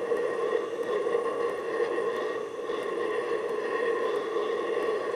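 Victor oxy-fuel torch burning with a light flame: a steady, even hiss with a low hum in it, as it heats a seized rear drum-brake star adjuster to free it.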